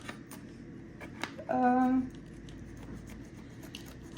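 Light scraping and a few sharp clicks of a utensil cutting a piece of baked brownie, with a short hummed voice sound about one and a half seconds in.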